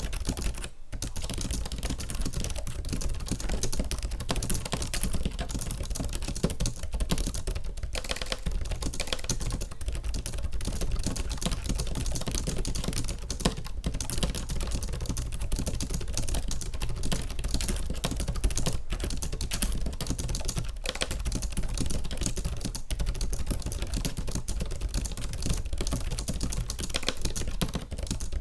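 Fast, continuous typing on a Logitech K780 keyboard's scissor-switch keys: a dense, even patter of soft key clicks with only brief pauses.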